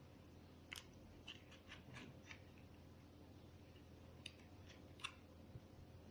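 Faint, scattered small clicks of the Intel i7-6700K processor's retail packaging being opened by hand, about seven over the stretch, with near silence between them.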